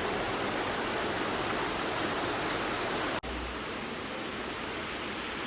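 Steady rush of flowing water, like a stream or small waterfall, with a momentary break about three seconds in.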